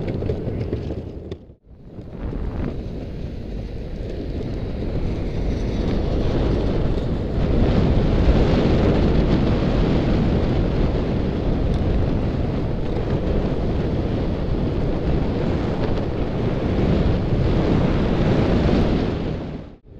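Steady wind rushing over the microphone of a camera moving fast downhill behind a longboarder. It drops out briefly about a second and a half in.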